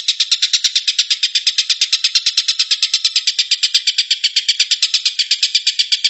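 Oriental dollarbird calling: a fast, even string of short chattering notes, about eight a second, without a break.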